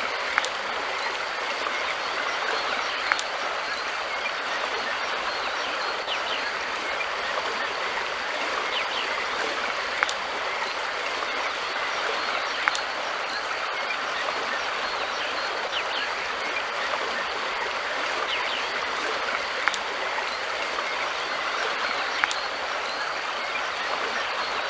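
River water flowing: a steady, even rush, with a few brief sharp ticks scattered through it.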